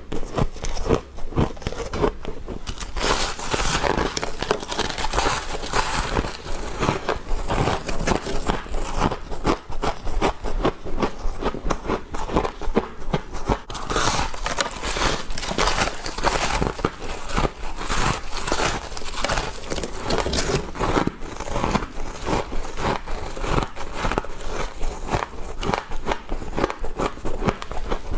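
Bites into freezer frost, crunching and crackling almost without pause, each bite a quick burst of crisp crunches.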